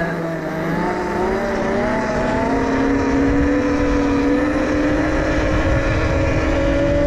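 72-volt electric pit bike's motor whining as it accelerates, the pitch climbing slowly. Wind buffets the microphone underneath.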